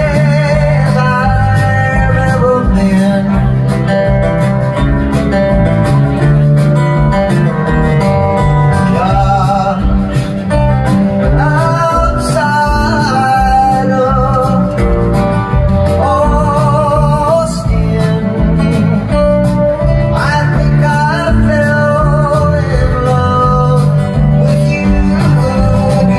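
Country band playing live: strummed acoustic guitar over drums and bass, with a lead melody line that slides and wavers.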